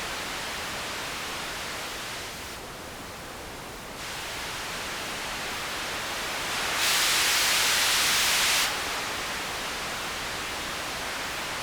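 Pink noise hiss passed through a Warm Audio Tube Squealer overdrive pedal while its tone knob is swept. The hiss turns duller for about a second and a half, then much brighter and louder for about two seconds, then settles back.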